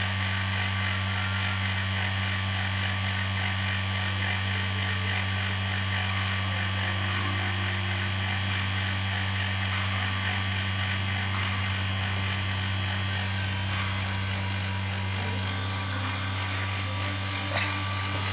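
Small electric rotary vane vacuum pump running steadily with a strong hum and a hiss while it holds vacuum on a vacuum drying oven. A light click near the end.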